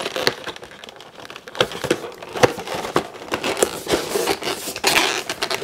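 Toy packaging being handled and moved: crinkling rustles with scattered light clicks and knocks, busiest near the end.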